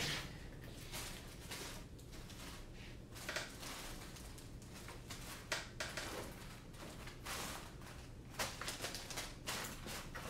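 Rummaging through small hardware: scattered light clicks, rattles and rustles of small screws and parts being searched through, over a faint steady hum.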